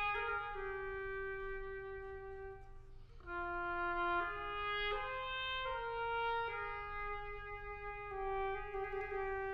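Unaccompanied oboe playing a slow phrase of held notes in the middle register, moving by step, with a short break for breath about three seconds in.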